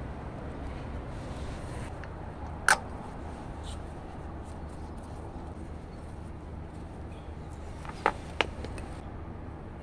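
Sharp clicks of a spark plug and its rubber plug cap being handled on a motorcycle's finned cylinder head: one click a little under 3 seconds in, then two quick clicks about a second before the end. Under them runs a steady low rumble.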